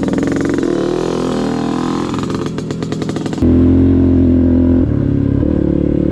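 Off-road vehicle engine running, its pitch falling and then rising as it revs. About three and a half seconds in, the sound switches abruptly to a steadier, louder engine note.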